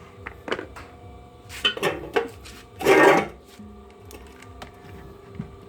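Handling noises: a few light clicks and knocks, then a louder scraping rub about three seconds in, as the washing machine's power cord is taken up and handled.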